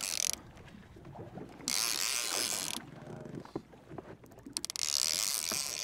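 Heavy conventional fishing reel under load from a hooked fish, the drag giving line in three short buzzing runs with small mechanical clicks between them.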